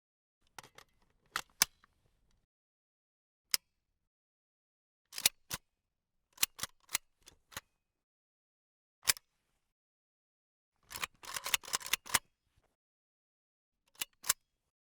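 Gun-handling foley: sharp metallic clicks and clacks of a firearm's mechanism, heard singly and in pairs, with a quick rattling run of clicks about eleven seconds in.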